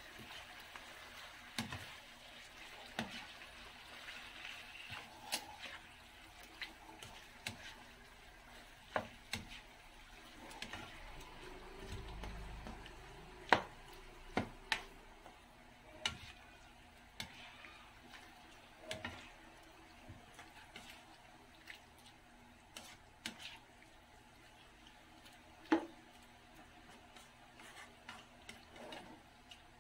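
Black spatula stirring pork pieces in a nonstick wok: irregular scrapes and knocks of the spatula against the pan, over a faint hiss of the meat frying.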